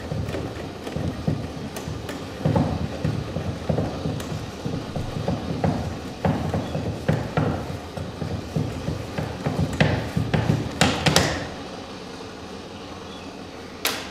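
A low, irregular rumbling clatter of knocks, ending about eleven seconds in after a few sharp clicks; one more sharp click comes near the end.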